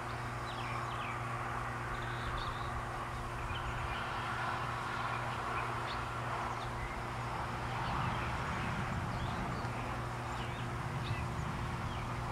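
Backyard ambience: scattered short bird chirps over a steady low hum.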